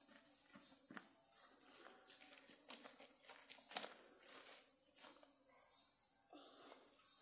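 Faint insects chirping, a high trill that comes and goes, with scattered light clicks and taps, the sharpest about four seconds in.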